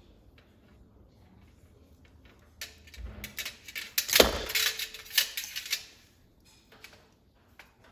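A burst of clicks, knocks and rattles as the metal heater's parts are handled and a fastener is squeezed and worked loose, lasting about three seconds with a thump near the middle, then a few light ticks.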